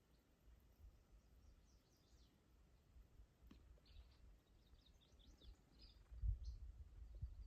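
Near silence with faint, scattered bird chirps. A low rumble rises about six seconds in.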